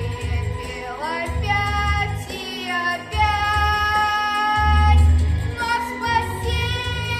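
A child singing a song over a backing track with a pulsing bass, holding long notes.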